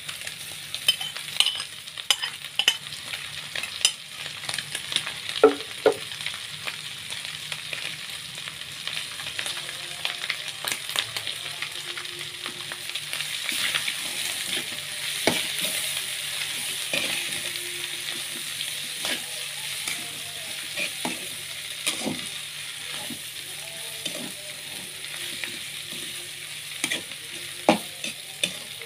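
Papaya leaves stir-frying with anchovies and chilies in hot oil: a steady sizzle, with frequent uneven knocks and scrapes of a utensil against the pan as the leaves are stirred.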